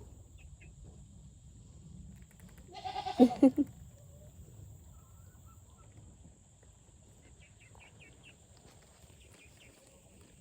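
A single loud, bleat-like animal call about three seconds in, broken into a few short pulses, followed later by a few faint high chirps.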